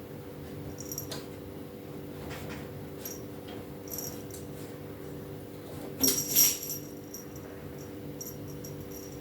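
A cat's toy jingling and rattling in short bursts, loudest about six seconds in, over a steady low hum.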